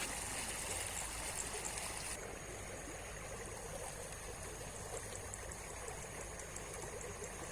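River water flowing steadily, a continuous rushing stream; its upper hiss thins about two seconds in.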